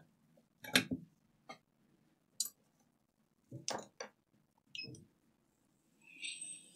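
About six sharp, irregular clicks and light clinks from small objects being handled on a workbench, the loudest about a second in; a steady hiss starts near the end.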